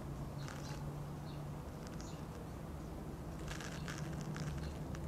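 Quiet outdoor background: a faint steady low hum with a few soft scattered clicks and rustles.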